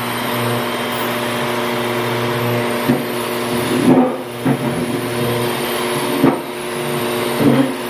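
Airrobo pet grooming vacuum running steadily, a loud motor hum close to the microphone, with a few brief louder bumps as the brush head is drawn through the cat's fur.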